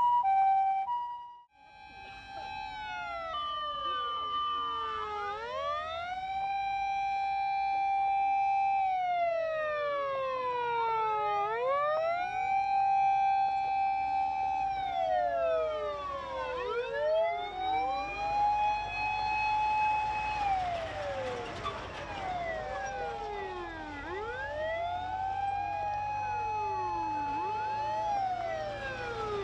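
A Japanese ambulance's two-tone siren, alternating a high and a low note, is heard for about a second and a half and cuts off. Then come Japanese fire engines' electronic wail sirens, each rising, holding a long note and falling, about every six seconds. From about halfway along, two or more sirens overlap out of step over a growing rumble of heavy vehicle engines.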